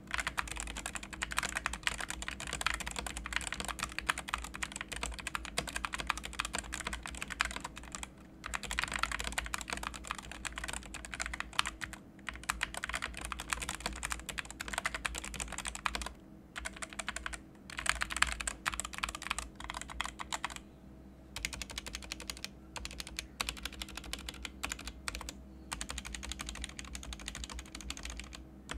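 Typing on the Paradox Gaming Ghost OPT64 mechanical keyboard with Gateron optical switches. The rapid keystroke clatter runs almost continuously, broken by a few short pauses. The reviewer calls these switches fairly scratchy and noisy.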